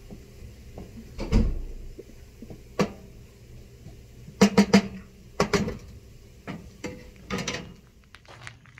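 Music with sparse drum hits, including a quick run of three hits about four and a half seconds in.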